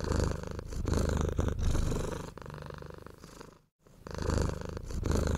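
Domestic cat purring in a close, rhythmic rumble that swells and eases in phases. The same stretch of purring stops briefly about three and a half seconds in and then plays again.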